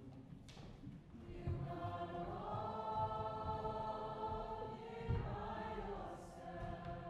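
Chamber choir singing slow, held chords, moving to a new chord about two seconds in, with a couple of low thumps underneath.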